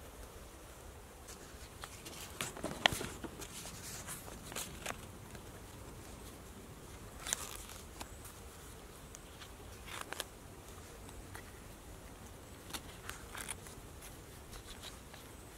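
Pages of a spiral-bound paper notebook being turned and handled: a few short, crisp rustles and flicks at irregular intervals, the loudest about three seconds in, over a faint steady hiss.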